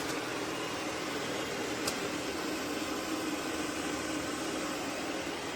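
Steady machine noise, an even whoosh with a faint low hum, broken by one short click about two seconds in.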